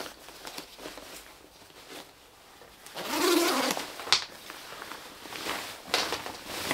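Synthetic rain jacket being handled and turned to show its inside: a brief rustle of the shell fabric about three seconds in, followed by a short sharp click.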